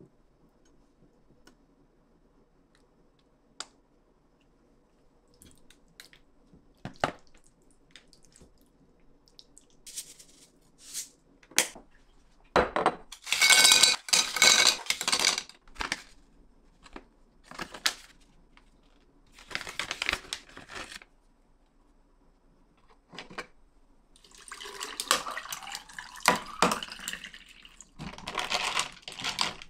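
Ice cubes tipped from a plastic ice bin clattering loudly into a glass pitcher, the loudest stretch, about halfway through. Before it come a few light clicks of omelette slices being set on a ceramic plate. Later, liquid is poured over the ice and a long spoon clinks against the glass.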